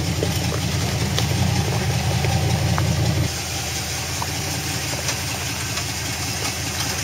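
A 400 cubic-inch small-block V8 in a lifted Chevy Suburban running at low revs as it crawls over rocks, with a few sharp clicks scattered through. The rumble drops in level about three seconds in.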